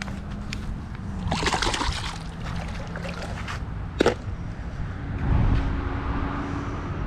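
Water splashing and sloshing, loudest for about a second near the start, with a sharp knock about four seconds in.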